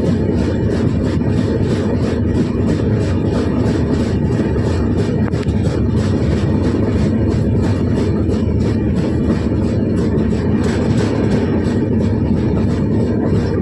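Train running along the track: a steady low rumble with a fast, even clatter at roughly four beats a second.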